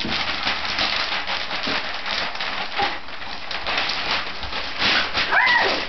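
Christmas wrapping paper crinkling and rustling as a toddler handles it, a dense, continuous crackle. Near the end there is a short high call that rises and then falls.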